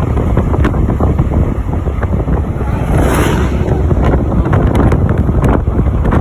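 Wind buffeting a phone microphone held out of the window of a moving vehicle, over the low rumble of the vehicle on the road, with a brief louder hiss about three seconds in.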